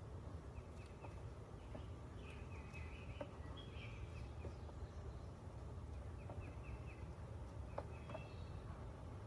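Faint steady low hum of honeybees at an open hive, with clusters of short bird chirps several times and a few faint clicks.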